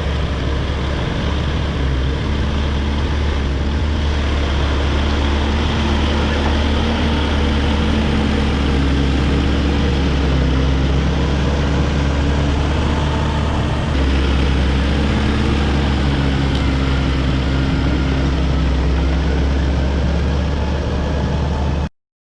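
Caterpillar D5 wide-track bulldozer's diesel engine running steadily, a deep drone that cuts off suddenly near the end.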